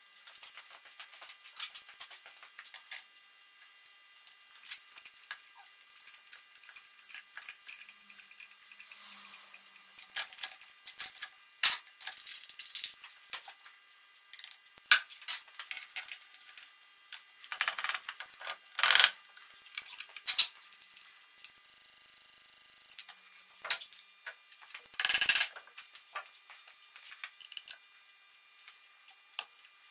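Metal clicks, taps and clinks of hand tools on the cast-iron Singer 29K33 sewing machine as a gear puller works the handwheel off the shaft and a screwdriver is used on the arm. The clicks are scattered and irregular, and a louder noise lasting about a second comes about three-quarters through.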